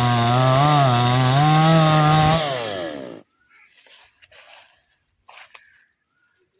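Chainsaw running at high revs with its pitch wavering as it cuts, then winding down and cutting out about three seconds in. Faint knocks and rustles follow.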